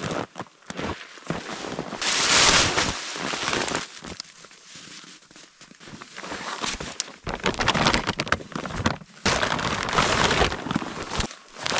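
Rustling and crinkling of a nylon stuff sack and backpack being handled, with scattered knocks and crunches in cold snow; the rustling comes in two longer stretches, about two seconds in and again in the second half.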